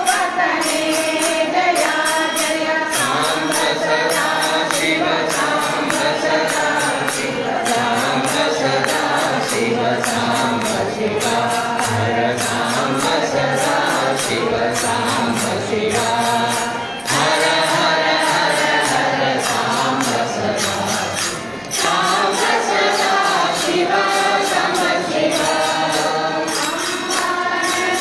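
Devotional singing, a lead voice on a microphone with a group of voices, over a steady jingling percussion rhythm. The singing breaks off briefly twice between phrases.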